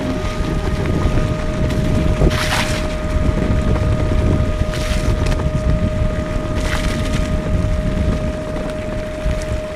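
Wind buffeting the microphone during a ride on an electric off-road skateboard, over a steady whine from its belt-driven motor. Three brief rushes of noise break through, at about two and a half, five and seven seconds in.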